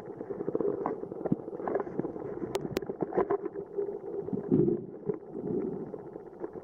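Muffled underwater ambience: a steady low rumble with many scattered small clicks and crackles, and two sharp ticks about two and a half seconds in.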